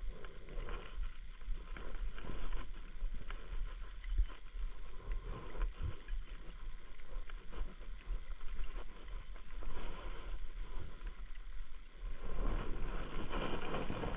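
Rustling and irregular thumps of someone moving on foot through wet grass and thornbush, with wind and handling rumble on the microphone. The noise gets louder and denser near the end.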